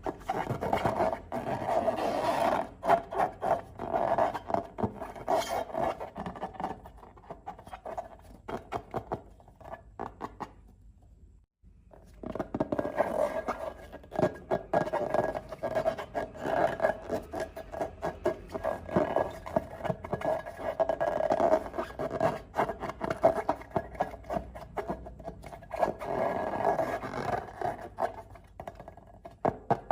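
Slime and balloons being handled: dense, irregular crackling and scraping, with a steady tone underneath. It breaks off briefly about twelve seconds in.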